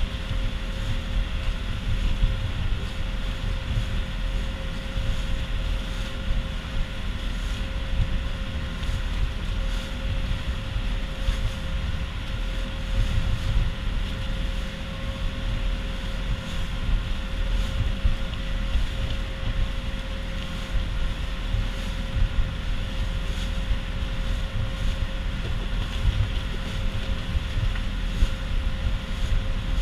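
Bangka outrigger boat's engine running steadily while under way, a constant drone with a held tone, under heavy wind buffeting on the microphone.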